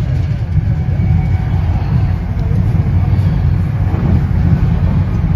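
Steady low rumble of an NJ Transit Comet II/IV passenger coach running at speed, heard inside the car: wheels on rail and the body's running noise.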